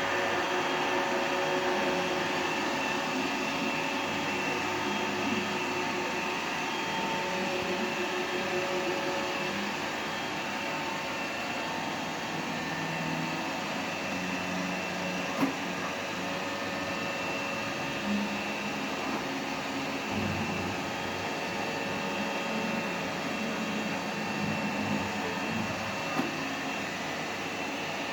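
Tefal Explorer Series 20 robot vacuum cleaner running, a steady whirring hum, with a few short clicks, the sharpest about halfway through.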